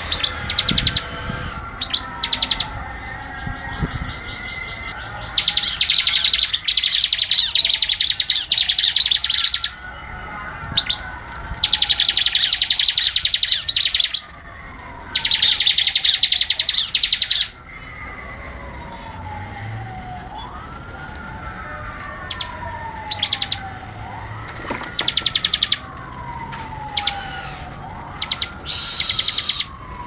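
Bar-winged prinia (ciblek) singing: long runs of rapid, high-pitched chip notes lasting a few seconds each, with gaps and short bursts between them. A softer falling whistle repeats in the background about every two seconds.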